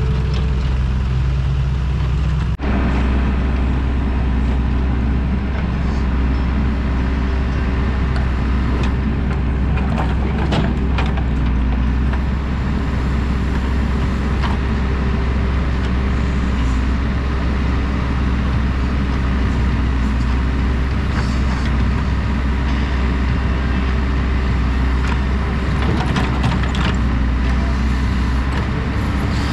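JCB 3DX backhoe loader's diesel engine running steadily, working the backhoe arm as it digs soil, with a few short knocks about ten seconds in and near the end.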